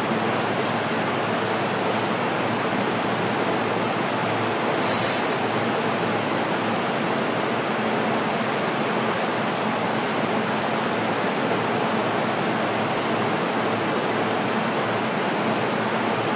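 Steady, even rushing noise inside a JR East E233-series commuter car, with a faint low hum underneath and no rise or fall in pitch.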